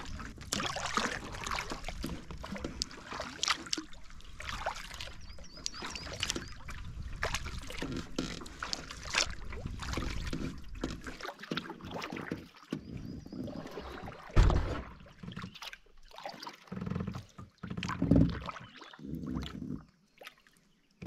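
Canoe paddling: irregular paddle strokes splashing and dripping in the water, with a low rumble under the first half. A single loud thump comes about two-thirds of the way through, followed by a few more separate splashes.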